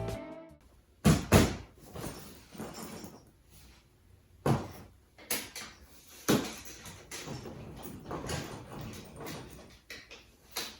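A hard-shell suitcase being handled and set about: a handful of sharp knocks and thumps spread through the stretch, with quieter rubbing and rustling between them.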